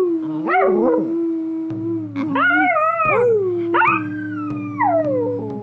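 A small dog howling in long drawn-out howls whose pitch glides up and down, with a second howl overlapping at times. A steady low hum comes in about a third of the way through.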